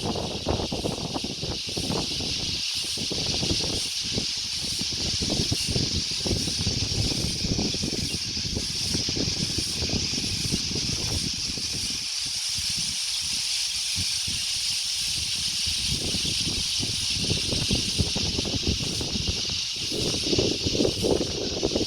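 Wind gusting across the microphone with a low, uneven rumble that dies down for a few seconds in the middle and picks up again near the end, over a steady high-pitched hiss.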